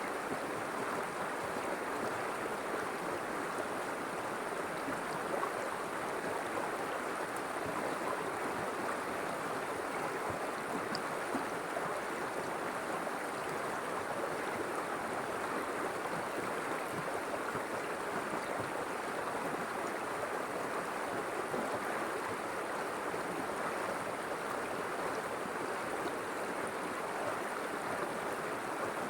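River water flowing steadily, a constant rushing with no breaks.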